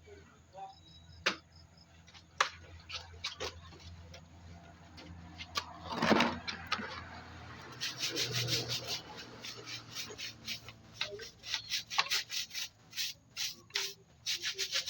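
Quick, rhythmic scrubbing strokes, several a second, begin about eight seconds in, after a few scattered clicks and knocks. A low steady hum underneath stops just before the scrubbing starts.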